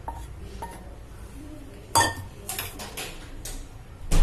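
Metal pans clinking and a spatula scraping as boiled vegetables are tipped from one pan into a wide kadhai. A sharp clank comes about two seconds in, smaller knocks follow, and the loudest clank comes right at the end.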